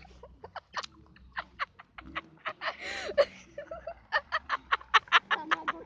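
Hard, breathy laughter in quick pulses, several a second, loudest over the last couple of seconds, with a short voiced outburst about halfway through.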